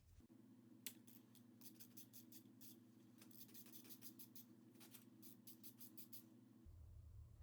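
Faint, irregular clicking and scraping of small hand and tool handling over a low room hum. The clicks come in loose runs, thickest in the middle.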